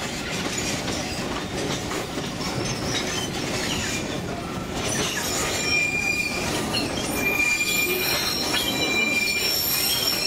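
Narrow-gauge tourist train running, heard from an open-sided car: a steady rumble of wheels on rail. About halfway through, high-pitched wheel squeal sets in and holds, typical of the wheels grinding round a curve.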